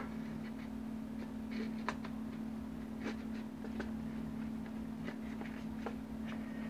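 Faint, scattered clicks and scrapes of a new polymer Magpul MOE SL carbine stock being worked onto an AR-15 buffer tube, a stiff fit. A steady low hum runs underneath.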